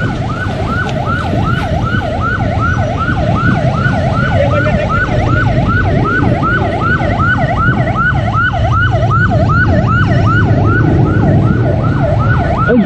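Emergency vehicle siren in a rapid yelp, its pitch sweeping up and down about three times a second without a break, over a low rumble of engines and traffic.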